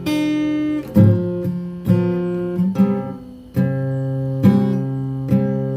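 Acoustic guitar strummed, chords struck roughly once a second and left to ring, with a brief drop-out a little over halfway through.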